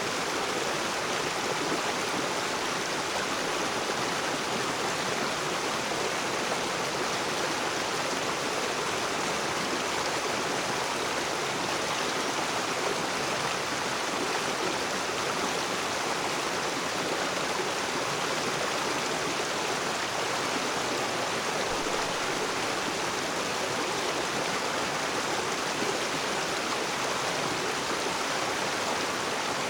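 River water rushing and splashing over rocks, a steady, even rush without breaks.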